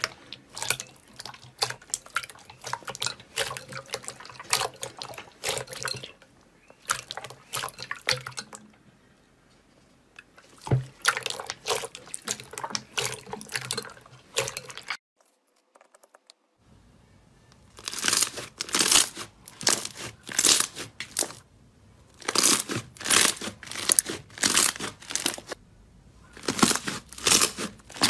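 Hands squeezing and kneading clear jelly slime in a glass bowl, with wet squelches, pops and sticky crackles. After a short break comes a louder, crisper run of rapid crackling and tearing as a thick green slime is pressed and pulled apart.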